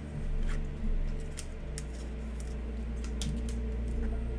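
Trading cards being handled in plastic sleeves and toploaders: light scattered clicks and rustles of plastic and card stock, over a steady low hum.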